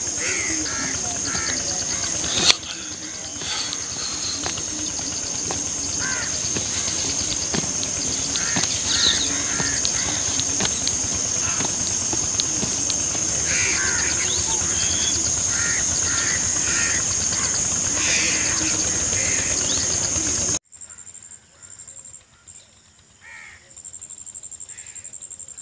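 Village field ambience: insects shrilling steadily at a high pitch, with birds calling in short runs of repeated notes. A single sharp knock comes about two and a half seconds in. Near the end it cuts to a much quieter stretch with fainter insects and a few calls.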